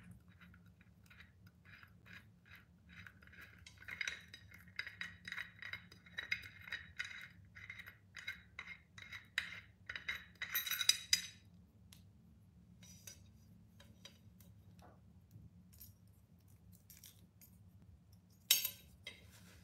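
Small metal handle parts clinking, ticking and scraping against a tempered glass pot lid as they are fitted by hand. There is a busy run of quick light clinks in the middle, then one sharp clink near the end.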